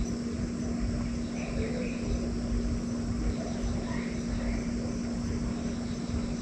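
A steady low hum over a low rumble, with a bird calling short rising notes, mostly in pairs, about every two to three seconds.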